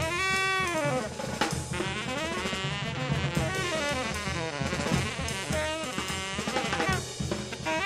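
Background music with a steady drum beat and a brass-like melody.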